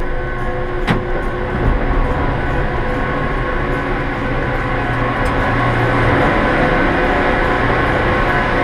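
Gondola lift terminal machinery running as the cabin moves through the station: a steady whir and rumble with several steady whining tones. There is a click about a second in, and the sound grows a little louder toward the middle.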